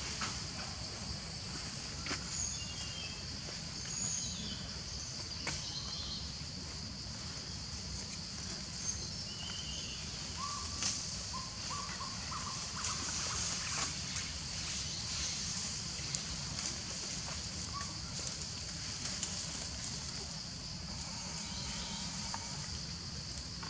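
Outdoor forest ambience: a steady high drone of insects over a low rumble, with a few short chirps and faint scattered clicks.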